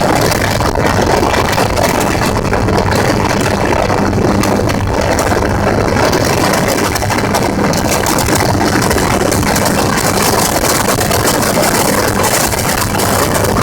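Gyrocopter engine and propeller running steadily, under an even rushing noise.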